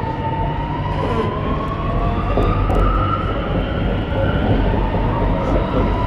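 Alstom Metropolis C751C metro train's traction motors whining as it accelerates, the tone rising over the first few seconds, over the steady low rumble of the carriage running on the track.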